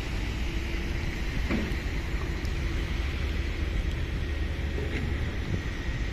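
Steady low rumble of engines from site machinery and road traffic, with wind noise on the microphone.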